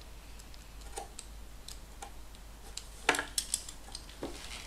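Stanley knife cutting through quarter-inch rubber fuel hose: scattered light ticks and clicks, then a few sharper clicks a little after three seconds.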